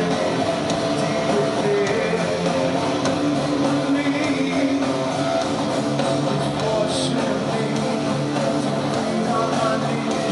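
Live heavy rock band playing, with loud distorted electric guitars and drums.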